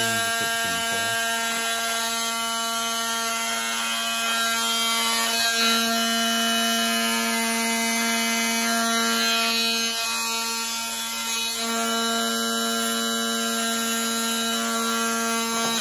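Cordless Milwaukee oscillating multi-tool running at a steady pitch, its blade cutting a slot into a plastic helmet ear-cup shell. It stops suddenly at the end.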